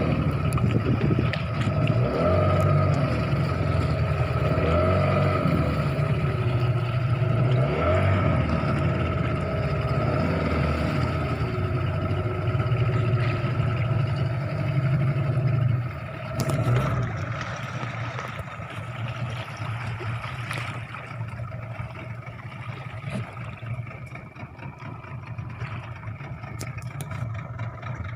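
A fishing boat's motor running steadily under way, easing back to a lower, quieter running about sixteen seconds in.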